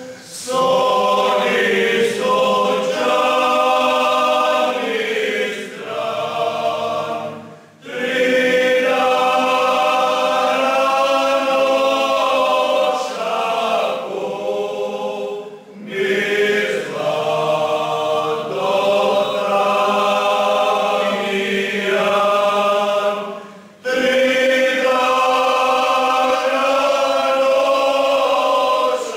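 Croatian men's folk singing group singing a cappella in harmony, in long held phrases of about eight seconds with short breaks for breath between them.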